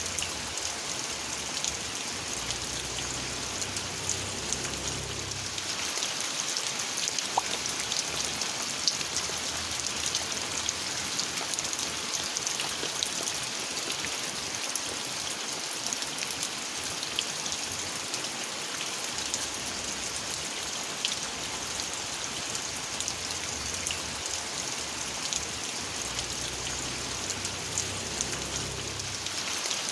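Steady rain falling: an even hiss with scattered single drops ticking on a surface. A faint low hum comes in twice, a few seconds each time.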